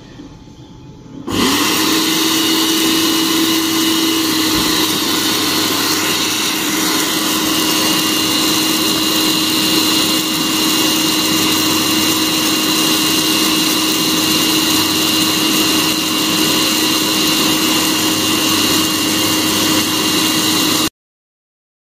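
Cafemasy hot-air coffee roaster's fan starting about a second in and then running steadily at the start of a roast, blowing air that tumbles the green beans. It is a loud whoosh with a steady hum and a high whine, and it cuts off abruptly near the end.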